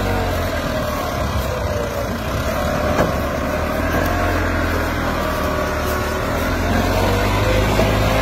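Massey Ferguson 385 tractor's diesel engine labouring under a heavy load, its pitch sagging and rising unevenly as it drags a loaded trolley.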